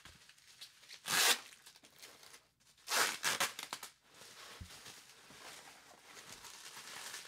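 Plastic wrapping around packed glass jars being torn open and crinkled by hand. There are two loud rips, one about a second in and one about three seconds in, followed by softer rustling.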